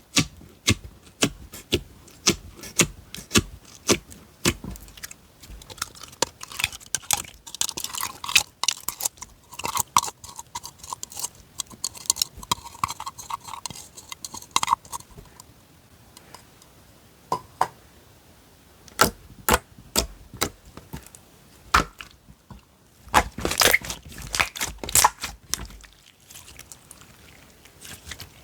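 Slime being handled by hand, giving sharp clicking pops: about two a second at first, then a denser crackly squishing stretch, and tight clusters of clicks again near the end.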